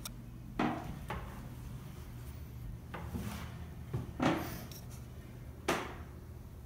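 Several separate knocks and thumps at irregular intervals, the loudest about four seconds in, over a low steady hum.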